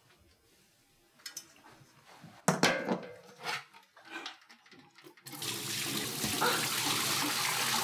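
A few light clinks and sharp knocks, then about five seconds in a steady rush of running or pouring liquid that lasts about three seconds.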